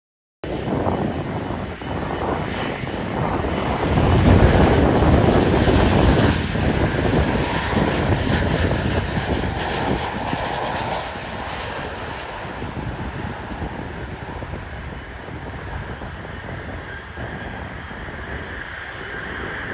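Airliner's jet engines as the plane passes, loudest about four to six seconds in and then slowly fading, with wind buffeting the microphone.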